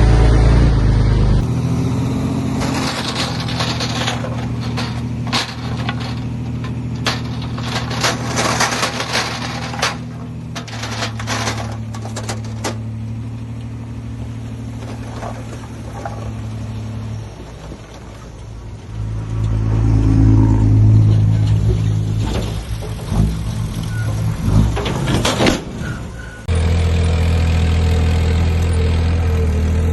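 Heavy diesel engines of earthmoving machines running steadily, with bursts of sharp knocks and rattles, the sound changing abruptly twice, near the start and near the end.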